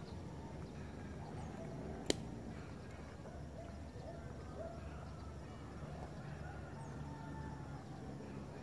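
Outdoor ambience on a forested hilltop: a steady low rumble with faint, short chirps scattered through it. One sharp click about two seconds in.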